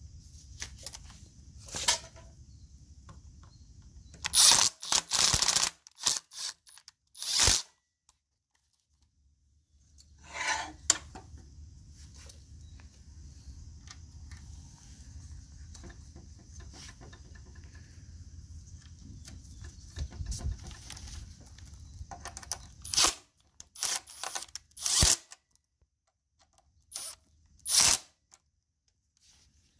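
Intermittent knocks, clicks and clatter of metal parts, screws and a nut driver being handled over a small condenser coil's sheet-metal frame and fan housing on concrete, with a faint low hum behind them.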